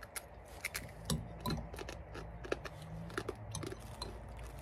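Scattered light clicks and taps of cutlery against plates during a meal, irregular and a few per second, over a faint low hum.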